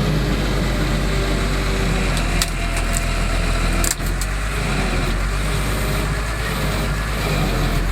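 Heavy diesel engine of the machinery unloading concrete piles, running steadily with a low rumble, with a few short metallic knocks about two and a half to four seconds in.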